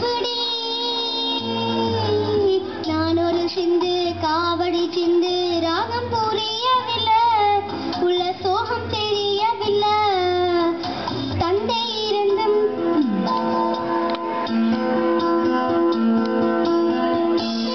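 A young girl singing a melody into a microphone over an instrumental backing with a steady bass pattern. Her voice stops a little over two-thirds of the way through and the instrumental accompaniment carries on alone with held notes.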